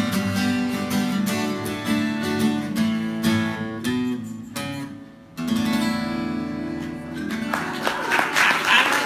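Acoustic guitar playing the instrumental close of a song, picked notes and strummed chords, dropping away briefly about halfway before strumming on. Audience voices and cheers rise over the guitar near the end.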